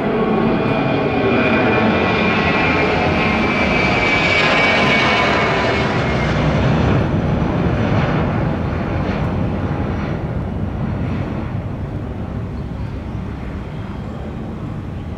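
Airbus A321 jet airliner climbing out just after takeoff: loud jet engine noise with a high whine. It swells to a peak about four to five seconds in, then slowly fades as the plane climbs away.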